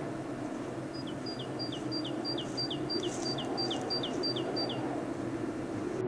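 A bird singing a quick repeated two-note phrase, a short high note then a falling one, about a dozen times at roughly three a second, over a steady low background rumble.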